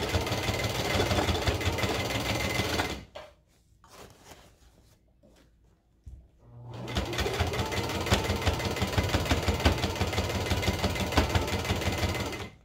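Electric sewing machine stitching a seam in fabric. It runs for about three seconds, stops for about three and a half seconds, then runs again for about six seconds and stops.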